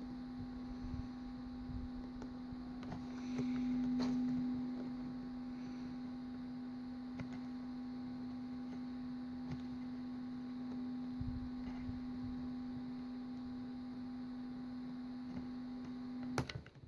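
Electric soldering gun humming steadily while the dead drone motor is freed, with a few faint clicks over it. The hum swells briefly a few seconds in and cuts off abruptly near the end.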